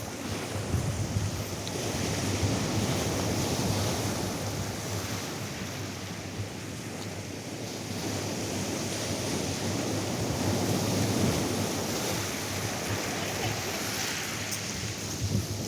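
Atlantic surf breaking and washing up a sandy beach, with wind rumbling on the microphone; a wave washes in more strongly near the end.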